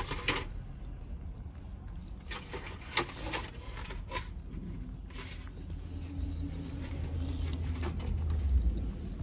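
Car cabin sounds: a few handling clicks and rustles, then a low engine rumble that builds from about halfway in as the car starts moving off.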